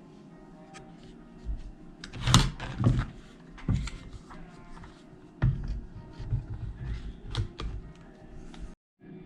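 A series of irregular knocks and clunks from clamps and hardwood oak blocks being handled and set down on a table, as a cabinet scraper is clamped between them. A soft steady background tune runs underneath.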